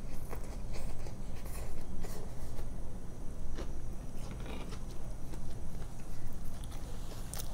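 Close-up chewing of a fried fish sandwich, with scattered wet mouth clicks and soft crackles over a steady low hum.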